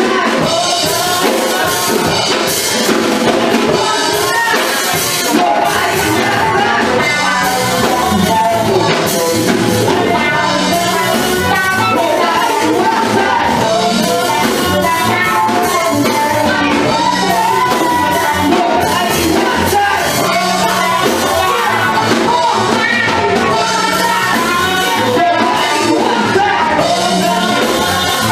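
Live rock band playing a song: drum kit, electric guitar and electric bass, with voices singing into microphones over them. The amplified music is loud and even throughout.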